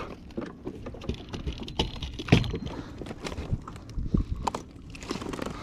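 Scattered knocks, taps and rustles of a landing net and a freshly caught fish being handled on a plastic kayak deck, with one louder knock about two seconds in.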